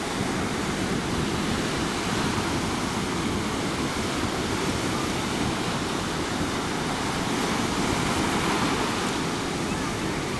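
Ocean surf breaking and washing ashore, a steady rushing noise.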